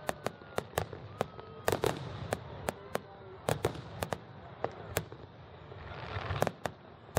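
Fireworks display: aerial shells bursting in a quick, irregular string of sharp bangs, some with crackle after them. Near the end a hiss swells up and ends in a loud bang.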